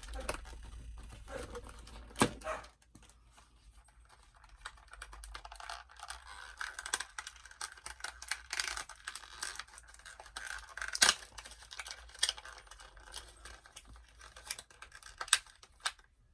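Small packaging being torn open and crinkled by hand to free a doll accessory, with scattered sharp clicks and taps of small plastic pieces, a few of them much louder.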